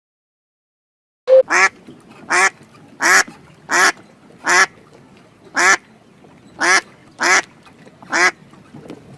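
A duck quacking: a series of about nine short quacks, a little under one a second, starting after about a second of silence.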